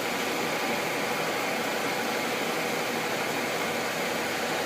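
Gisholt 3L saddle-type turret lathe running steadily under its 30 horsepower main motor with the power feed engaged: an even mechanical noise with a faint steady tone.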